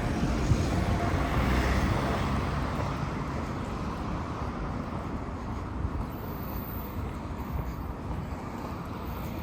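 A car driving past, its tyre and road noise swelling over the first two seconds and then slowly fading, over a steady low rumble.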